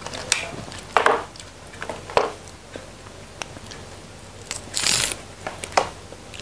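Raw petai cina (leadtree) pods being snapped, bitten and split open by hand: a few sharp crackling snaps and a longer crisp rasp about five seconds in.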